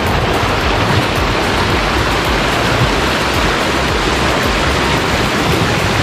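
Loud, steady rush of river water pouring over low rock ledges in a waterfall cascade.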